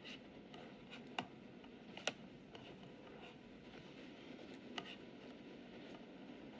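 A few scattered sharp clicks from a laptop's keys and trackpad over quiet room tone.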